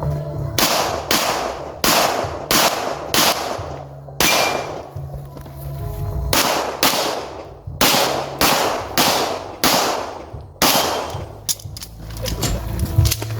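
Pistol shots fired in quick strings during a timed shooting stage: around fifteen sharp reports, in pairs and runs about half a second apart, with a pause of roughly two seconds in the middle.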